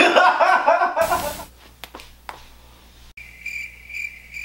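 A man's voice trails off in the first second, a short burst of static hiss follows, and from about three seconds in a high chirp pulses steadily, about two to three times a second.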